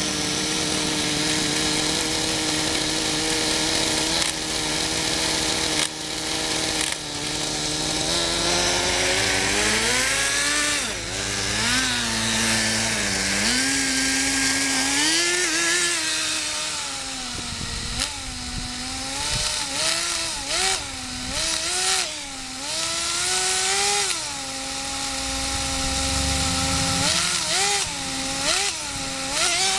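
Kyosho Nitro Blizzard's small .11 nitro engine running. It holds a steady idle for several seconds, then revs up and down repeatedly as the tracked model is driven.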